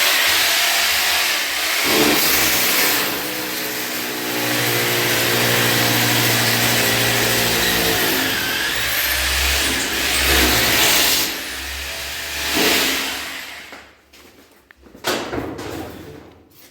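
Electric power tool running loudly for about thirteen seconds, starting abruptly, with a whirring hiss that shifts in pitch partway through, then stopping; a single knock follows near the end.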